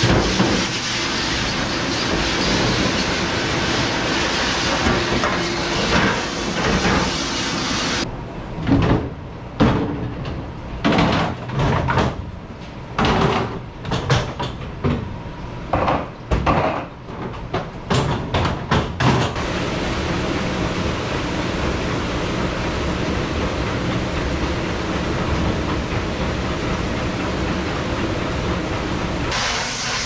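Commercial pre-rinse spray nozzle hissing against stacked metal sheet pans, then several seconds of irregular clanks and knocks as pans and a plastic dish rack are handled and pushed into a door-type dish machine. The machine then gives a steady, duller wash sound, and the spray hiss starts again near the end.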